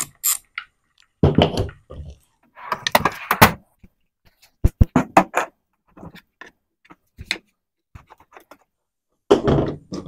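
A socket ratchet clicking briefly, then a string of irregular thuds, knocks and sharp clicks as a pool pump's motor and plastic housing are handled and set down on a workbench.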